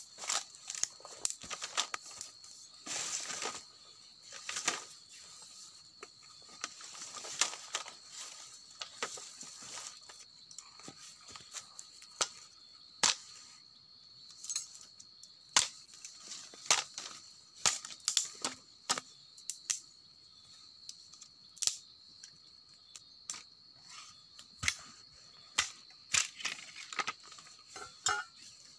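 Wood campfire crackling and popping, with irregular sharp cracks of varying loudness.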